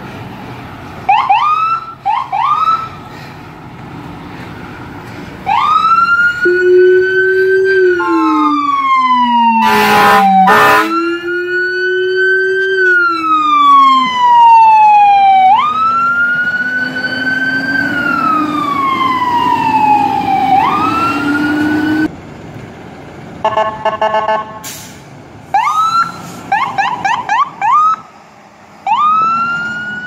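Fire-rescue ambulance siren: short rising yelps, then a slow wail that climbs quickly and falls off slowly in long cycles, with a lower tone following it. Two loud air horn blasts come about ten seconds in, and a burst of short air horn blasts and more yelps near the end.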